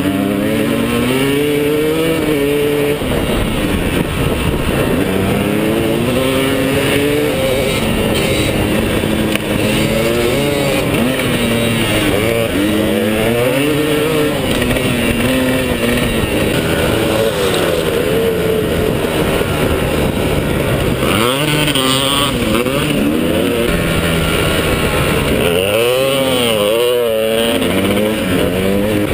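Dirt bike engine being ridden hard. Its pitch climbs and drops back again and again as the throttle is opened and eased.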